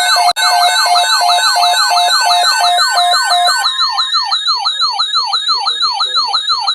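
Loud electronic siren tones layered together: rapid falling sweeps repeating several times a second, a fast high warble and a pulsing steady tone. Some of the layers drop out about halfway, leaving slower sweeps and the warble, and then everything cuts off abruptly.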